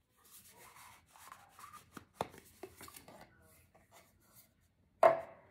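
Hands handling perfume packaging: rustling and scraping as a glass perfume bottle is taken out of its cylindrical case, with a few light clicks, then a single sharp knock about five seconds in.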